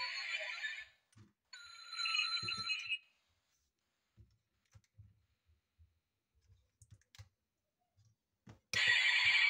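A 1/24 die-cast Pagani model car's built-in sound module plays electronic sound effects through its tiny speaker, cutting off about a second in, sounding again briefly around two seconds, and starting up loudly again near the end. In between, faint clicks as the model is handled and its doors are opened.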